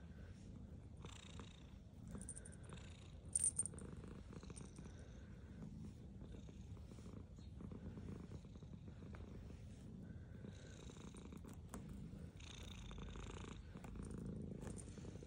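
Domestic cat purring steadily as it is petted, the purr swelling and easing with each breath about every one and a half to two seconds. A short sharp click a few seconds in.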